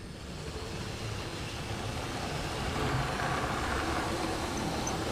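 Model train running on the track: a steady rumble of wheels and motor, growing louder over the first three seconds as the train comes close.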